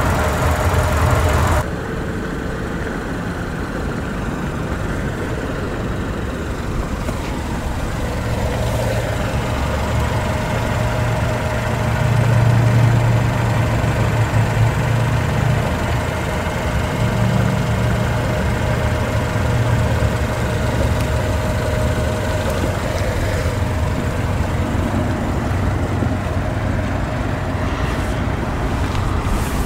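A 2017 Chery Tiggo 2's 1.5-litre inline-four engine running steadily, with a low hum. It swells louder briefly twice in the middle, as with a light rev or acceleration.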